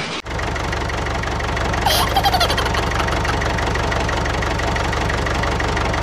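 Tractor engine idling steadily with an even, rapid beat, a sound effect laid over toy-tractor footage. A short high chirp comes about two seconds in.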